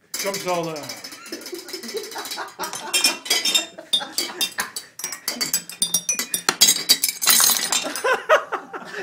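China teacups, saucers and a teapot struck and rattled together as percussion: many sharp clinks in quick, irregular succession. A voice gives a falling whoop at the start.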